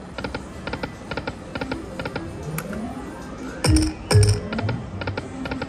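Aristocrat Lightning Link High Stakes slot machine spinning its reels: clusters of quick electronic clicks, a rising tone, then two loud thuds a half-second apart as the reels come to rest.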